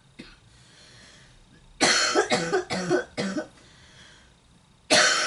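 A person coughing: a run of about five coughs in quick succession, then a single cough near the end.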